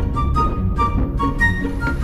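Background music: a light tune of short melody notes over a steady low rumble.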